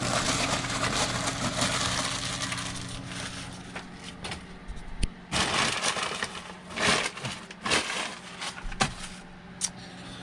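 Paper food wrapper and bag rustling and crinkling in irregular crackles, densest over the first few seconds, over a faint steady low hum.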